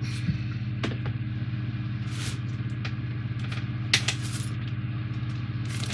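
A steady low electrical hum, with a few scattered clicks and rustles of a plastic parts pack and small model parts being handled.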